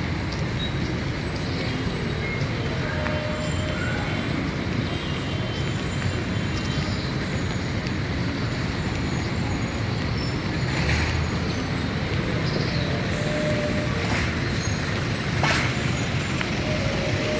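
Steady low outdoor rumble, like city traffic, with a couple of brief knocks about eleven and fifteen seconds in.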